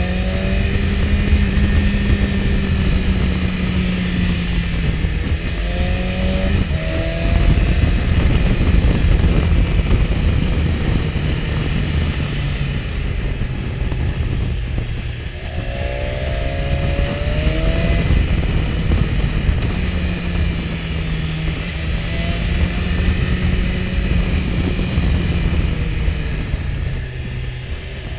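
BMW S1000XR's inline-four engine pulling the bike along, rising in pitch twice as it accelerates and stepping down in pitch at gear changes in between. A heavy low wind rumble on the microphone runs under it.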